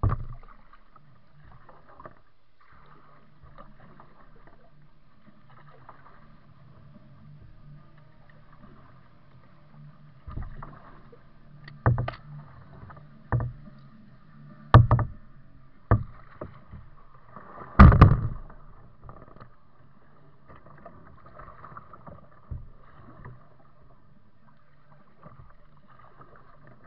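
Kayak paddling on a calm river: a faint steady background broken by sharp knocks of the paddle against the kayak's plastic hull, one at the start and then six in a row from about ten seconds in, the loudest a little after halfway.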